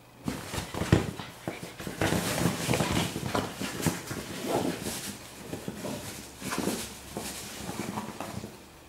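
A small terrier digging and chewing at a fabric dog bed: the cushion's cover rustles and scrapes in quick, irregular bursts, with a few sharper thumps.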